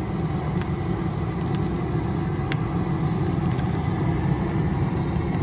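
Propane jet burner of a crawfish cooker running steadily under the boil pot, a constant low rumble, with a few faint clicks over it.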